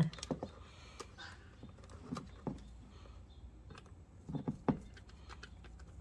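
Scattered light clicks and taps of a screwdriver against the plastic housing and terminal screws of a Lindo Dual-Cam video doorbell, as its wire leads are attached and it is fitted onto its wall bracket. A louder pair of knocks comes about four and a half seconds in.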